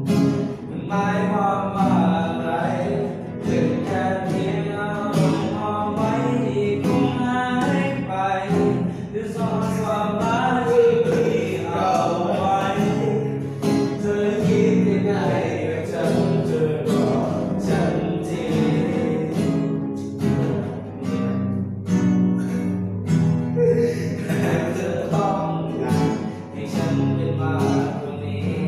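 Acoustic guitar strummed and picked, accompanying a voice singing a slow Thai pop song.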